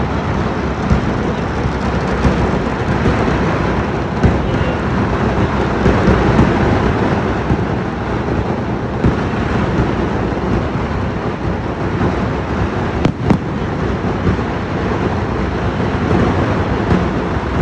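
Daytime firework barrage (vedikkettu): explosions following so closely that they merge into one continuous rumble like thunder, with a few sharper bangs standing out, one louder crack about 13 seconds in.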